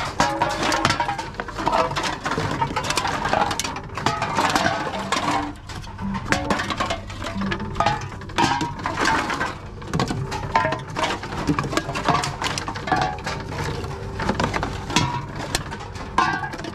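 Empty aluminium drink cans clinking and clattering as they are picked out of a plastic basket and fed one after another into the intake of a reverse vending machine, with many quick knocks throughout.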